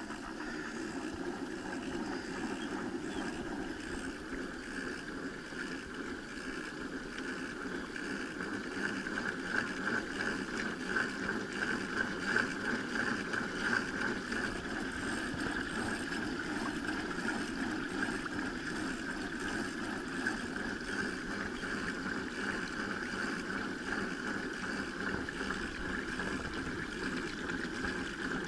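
Steady rush of water along the hull of a pedal-powered kayak under way, a little louder in the middle.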